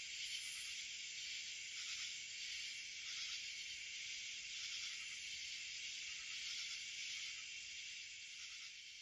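A dense, steady chorus of insects buzzing and shrilling, with a thinner, higher shrill swelling and fading above it, the whole sound dying away near the end.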